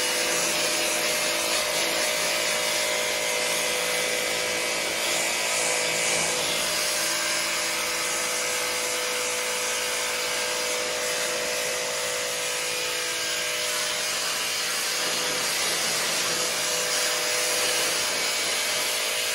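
Sun Joe 3200 electric pressure washer running steadily: the hiss of its high-pressure water jet blasting onto concrete over a constant motor hum.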